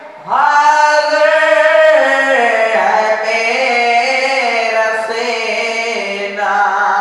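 A young man's solo voice chanting a noha, a Shia mourning lament, into a microphone with no accompaniment. The notes are long and held and slide in pitch, and a new, higher phrase begins near the end.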